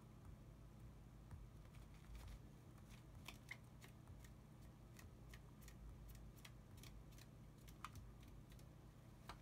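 Faint, irregular light clicks and taps from a Java sparrow pecking and shuffling under a paper tissue on a desk mat, over a low steady hum.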